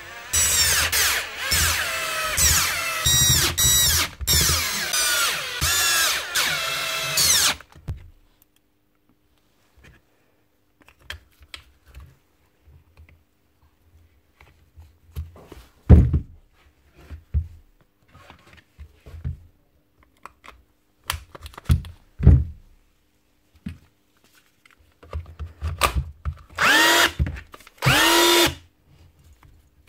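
A cordless drill/driver running in several short bursts, its motor pitch rising and falling with each trigger pull as it drives the housing screws into a Bosch GBH 18V-EC rotary hammer. After a pause filled with light handling and a couple of sharp knocks, a motor runs again in two short bursts near the end, the reassembled rotary hammer being test-run.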